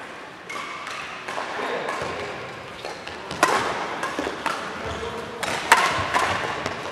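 Badminton rally: rackets striking a shuttlecock in a series of sharp smacks, each ringing briefly in a large hall, the loudest about three and a half seconds and near six seconds in.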